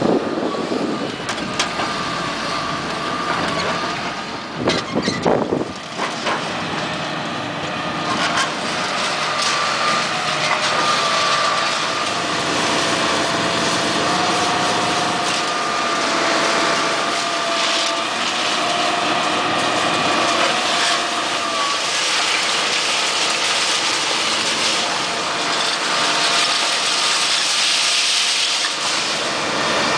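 Hitachi long-reach demolition excavator working: the engine runs steadily under a wavering hydraulic whine, with sharp knocks and crunching of concrete being broken, loudest about four to six seconds in.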